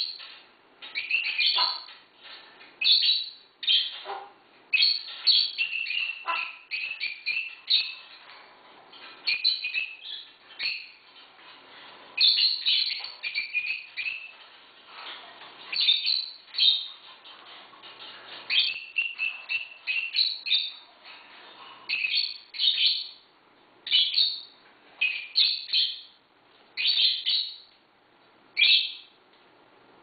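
Pet parrot calling: a long run of short, high-pitched chirps and squawks, one every second or two, with brief pauses between bursts.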